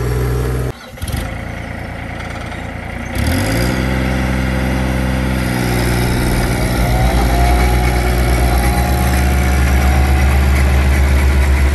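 Roller compactor's engine running. After a short drop about a second in, it revs up about three seconds in and settles into a steady run. A faint rising whine comes near seven seconds, and from then on it is louder with an even pulsing beat.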